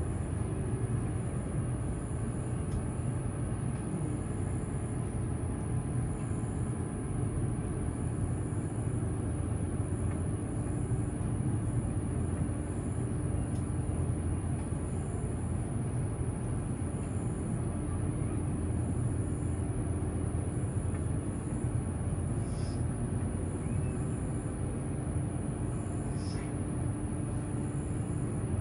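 Steady low outdoor rumble with a faint steady hum and a thin, constant high-pitched whine, and two faint brief chirps in the last third.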